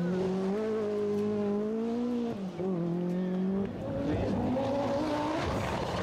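Group B rally car engine revving hard on a gravel stage. Its pitch climbs, falls sharply twice, about two and a half and three and a half seconds in, then climbs again.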